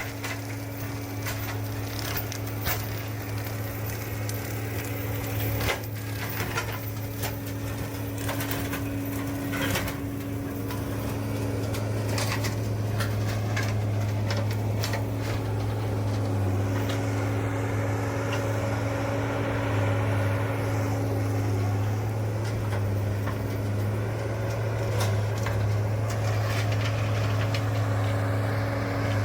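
John Deere 328D skid steer's diesel engine running steadily under load, driving a rotary mower deck through brush. There are sharp cracks of snapping wood, mostly in the first ten seconds.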